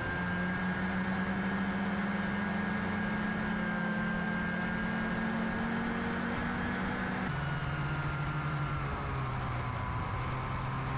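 Snowmobile engine running steadily at trail speed, heard from on board the sled, with a constant whine over its hum; its note steps down in pitch about seven seconds in.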